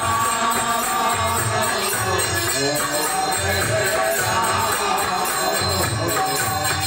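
Devotional kirtan music: a harmonium playing held chords over a drum beating a steady rhythm, with jingling hand percussion.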